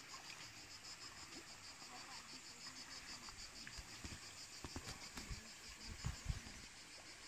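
Insects chirping in a fast, steady, high pulse, several beats a second. A few low thumps come in the second half, the loudest near the end.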